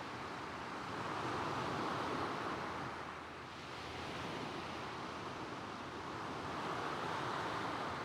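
Gentle waves breaking and washing across a stony shingle beach, the surf swelling twice, about a second in and again near the end.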